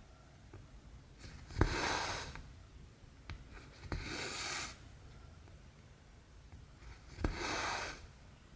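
Cotton embroidery thread drawn through cross stitch fabric, three times. Each pull starts with a sharp click and runs on as a hissing rub for just under a second.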